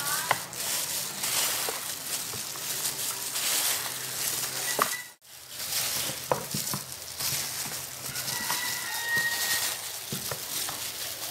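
Gloved hand mixing seasoned chicken drumsticks in a plastic basin: wet squelching and rustling with scattered small clicks, cutting out briefly about halfway through.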